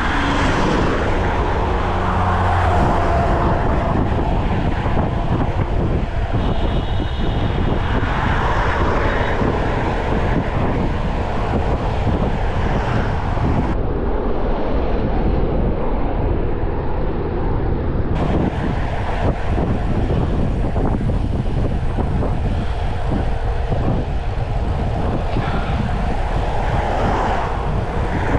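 Wind rushing over the microphone of a Brompton folding bike speeding downhill: a loud, steady rush, with a faint high whine briefly about six seconds in.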